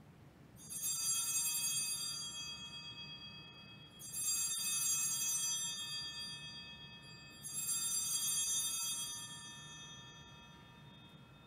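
Altar bells rung three times, about three and a half seconds apart, each ring starting sharply and fading away: the bells that mark the elevation of the chalice just after the consecration at Mass.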